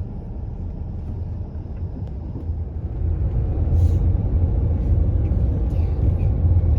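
Car moving along the road, heard from inside: a steady low rumble of tyres and engine that grows louder about three seconds in.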